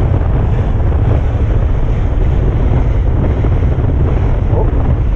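Steady wind rumble on the microphone aboard a fishing boat under way, with engine noise and water washing past the hull.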